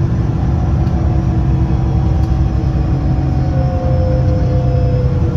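London bus DW211's engine and drivetrain heard from inside the cabin while the bus is under way: a steady, heavy rumble, with a gear whine coming up clear about halfway through and fading near the end.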